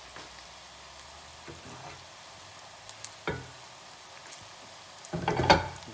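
Potato croquettes deep-frying in hot oil: a steady sizzle with a few scattered pops, and a louder clatter in the pan about five seconds in.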